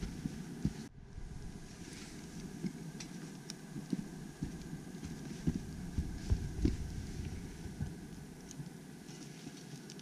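Irregular low thumps and wind rumble on the microphone, with a few faint sharp crackles from twigs burning in a small folding wood stove.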